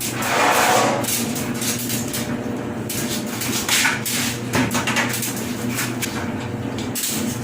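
Irregular knocks, clatter and scraping of hand work on a Whirlpool gas dryer's metal cabinet and parts during a belt replacement, the strongest in the first second, over a steady machine hum.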